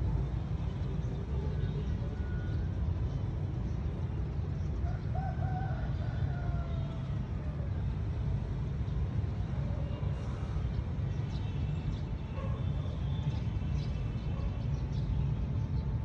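Outdoor ambience with a steady low rumble throughout, over which faint bird calls sound and a faint rooster crows about five seconds in.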